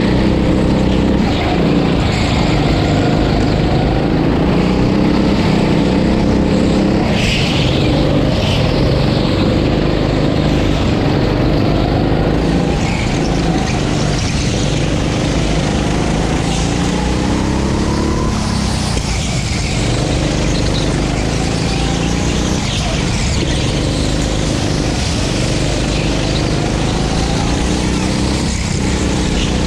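9 hp go-kart engine running hard and continuously, its pitch repeatedly climbing as it revs up and then dropping off, over a steady noisy rush.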